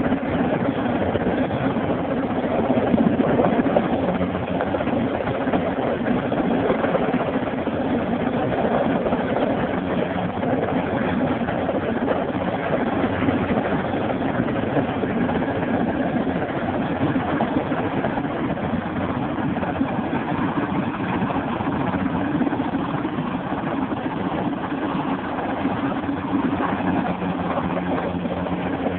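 Sikorsky S-58T helicopter running steadily, its turbine engines and rotor making a continuous drone with a few steady low tones.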